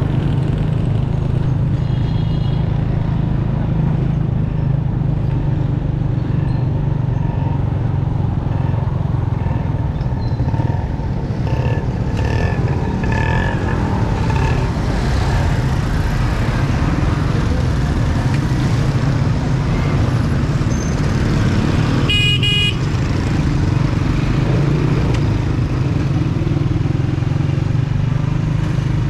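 Motorcycle engine running steadily while riding through dense street traffic, with horns honking around it. One loud, short horn blast comes about three-quarters of the way through.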